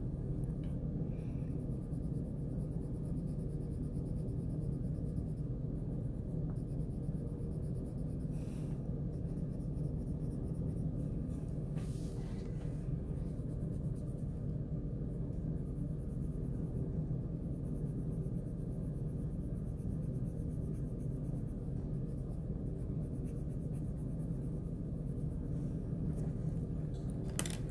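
Colored pencil rubbing steadily across paper as letters are shaded in with heavy pressure to lay down a dark color. There is one sharp click near the end.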